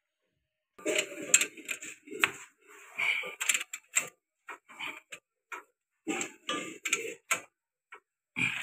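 Ratchet wrench clicking in short, irregular runs while tightening the bolts of a tractor clutch pressure plate assembly onto the flywheel, with light metal clinks between strokes.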